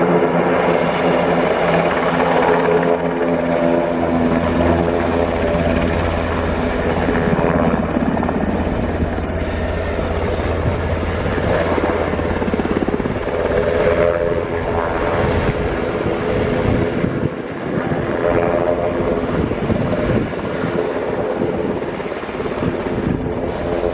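Aircraft engines droning loudly and steadily, with several held tones and a fast pulsing underneath.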